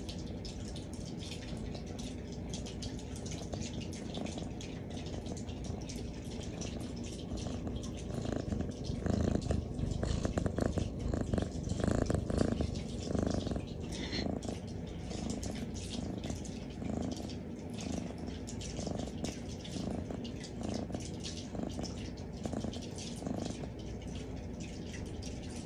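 Siamese cat purring steadily while being stroked, a contented purr. The purr grows louder in the middle as the cat's face comes right up to the microphone.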